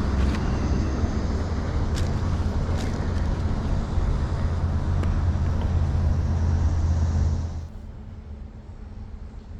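Steady low hum of a running engine, with a couple of faint clicks. It drops away abruptly near the end, leaving a much quieter background.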